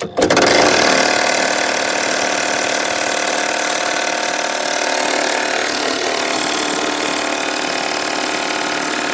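Mid-torque impact wrench hammering nonstop on a seized, rusted bolt, a fast rattling hammer that starts abruptly and holds steady. The bolt doesn't break loose.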